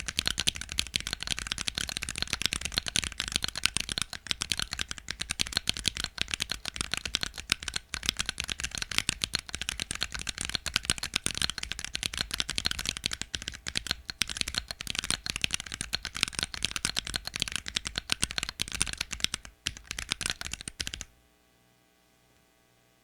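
Fast typing on a 40% Planck-layout mechanical keyboard with Akko Lavender Purple tactile switches, ABS Cherry-profile keycaps, a carbon fibre plate and plate foam in a Typeau.40 case: a dense, continuous stream of keystroke clicks that stops abruptly near the end.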